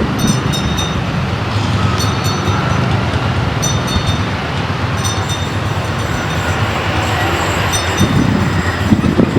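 A diesel locomotive's engine runs loud and steady as the train goes by, giving a deep drone. Short high-pitched tones recur every second or two over the top.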